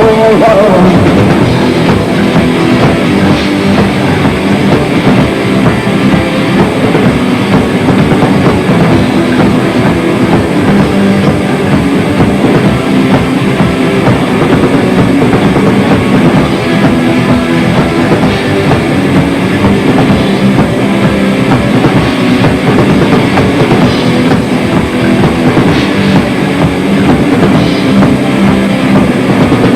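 Instrumental rock music with drum kit and guitar, loud and steady.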